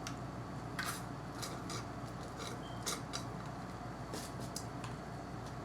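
Eating and takeout-food handling noises: scattered short crackles and clicks, the sharpest about a second in and near three seconds in.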